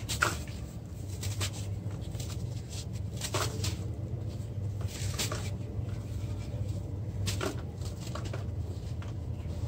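Bucket-shaped block of dried red dirt crunching and crumbling in the hands over a bowl of wet red dirt paste: irregular crunches every second or so, the loudest a sharp snap just after the start. A steady low hum runs underneath.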